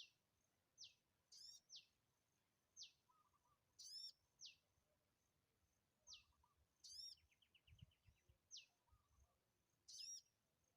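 Birds calling: a short, sharp whistle sliding down in pitch repeats about once a second, alternating with a richer, ringing call about every three seconds. Softer low chattering notes and a brief rapid trill come in about seven seconds in.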